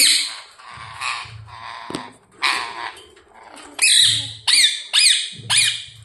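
Rose-ringed parakeets squabbling with harsh, raspy screeches, then about four short calls falling in pitch in quick succession near the end.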